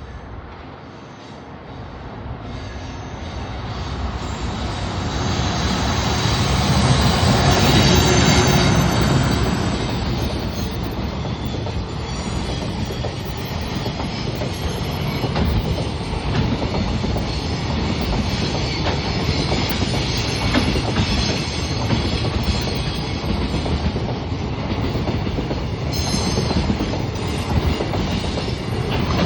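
JR Freight train passing: the locomotive approaches and goes by, loudest about eight seconds in. A long, steady rumble of freight wagons follows, with a rapid clicking of wheels over the rails.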